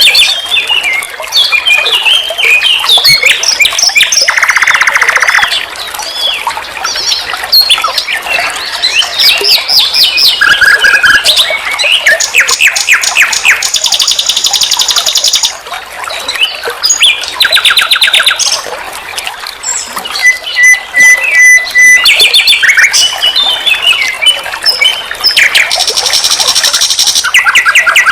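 Common nightingale singing a long, varied song: pure whistled notes, fast runs of repeated notes and dense rattling trills, broken by brief pauses.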